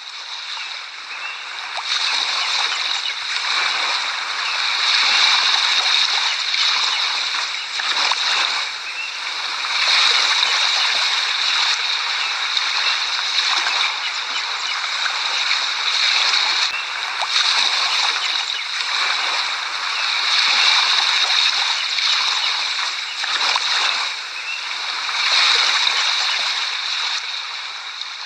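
Waves breaking and washing: a continuous rush of water that swells and eases every four or five seconds.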